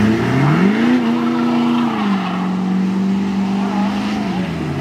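A Ford Super Duty pickup's engine revs up and holds high revs while its rear tyres spin on a dirt road, throwing up dirt. The revs step down about two seconds in, then dip and climb again near the end.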